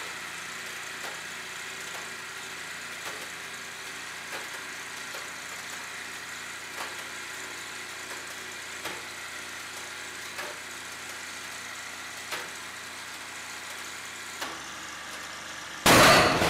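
Hydraulic press pump running steadily under load, with faint sharp ticks every second or two as the liquid-nitrogen-frozen sledgehammer head is squeezed. Near the end the brittle frozen steel head gives way at about 290 tons with a loud sudden bang that dies away over about a second.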